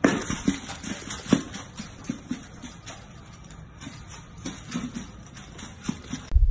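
Puppies eating dry kibble from a bowl on a hardwood floor: irregular crunching and clicking, with the bowl knocking now and then.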